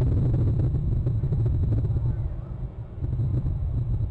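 Wind buffeting an outdoor webcam microphone: a low, steady rumble that eases briefly a little past the middle, then picks up again.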